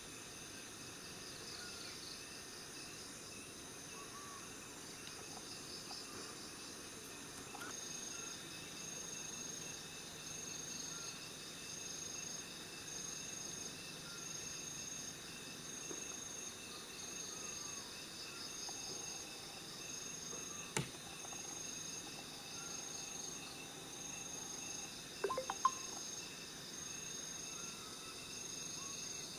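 Insects and crickets chirping in a steady chorus, with one high chirp repeating about every second and a bit from about eight seconds in. A single sharp snap comes about two-thirds of the way through, and a short cluster of sharp sounds, the loudest moment, follows a few seconds later.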